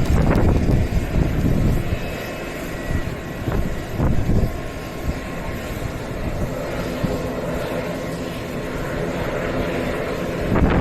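Turboprop airliner engines and propellers running steadily, the ATR 42-600 'Mizoka', with a few brief louder low rumbles.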